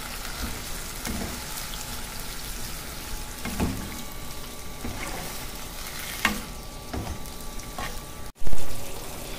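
Sliced bamboo shoots in broth bubbling at the boil in a nonstick wok while a plastic spatula stirs them, scraping and knocking against the pan every second or so. One sharp, much louder knock near the end.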